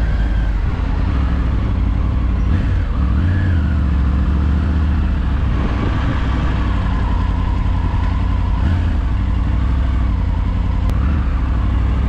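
Triumph Tiger 900 Rally's inline three-cylinder engine running at low revs while the motorcycle moves slowly, with small rises and dips as the throttle is eased on and off.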